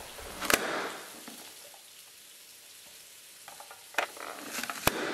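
Hand vegetable chopper cutting vegetables: a sharp clack with a crunchy burst about half a second in, then two more clacks with bursts near the end, and a faint hiss between them.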